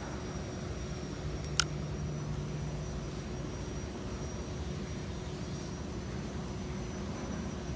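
Steady low background rumble, like distant engine drone, with a faint steady hum, and one short sharp click about one and a half seconds in.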